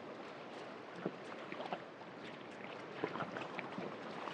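Steady rushing of fast river water through rapids, with scattered faint ticks and splashes.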